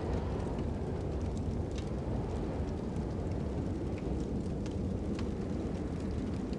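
Crackling fire over a steady low rush of wind: scattered sharp pops and snaps, a few each second, above a constant deep rumbling hiss.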